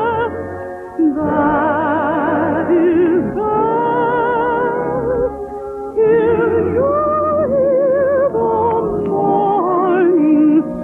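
An operatic singing voice with wide vibrato sings long held notes over orchestral accompaniment, with short breaks between phrases about a second in and again around the middle.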